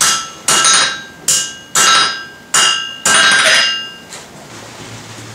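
Six ringing hammer blows on a forge-welded steel bar set upright in an anvil, bending it cold to test whether the weld holds; the last blow rings longest, and the hammering stops about four seconds in.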